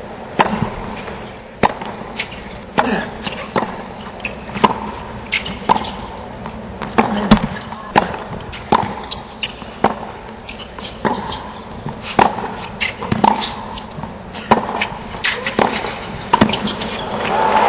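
Tennis rally on a hard court: a run of sharp tennis racquet hits and ball bounces, about one to two a second. Near the end, crowd applause and cheering swell.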